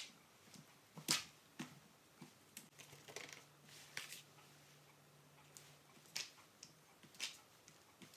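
Quiet scattered clicks and taps of a paint-covered cut bell pepper half being lifted off and pressed onto paper on a table, the sharpest right at the start and about a second in. A faint low hum runs through the middle.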